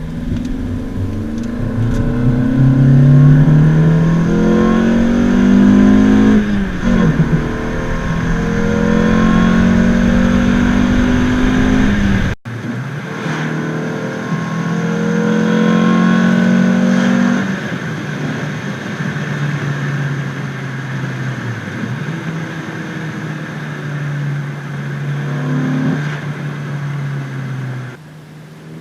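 Renault Clio RS 172's 2.0-litre four-cylinder engine accelerating hard through the gears, breathing through a Ramair pod air filter so the intake noise is prominent. The pitch climbs steadily in each gear and drops sharply at each upshift, several times over.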